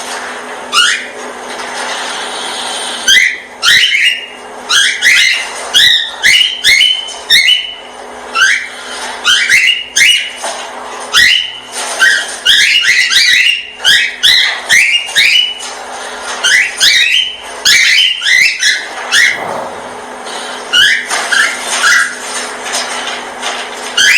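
Small pet parrots chirping: runs of short, sharp, rising chirps, two or three a second, with brief pauses between runs, over a steady low hum.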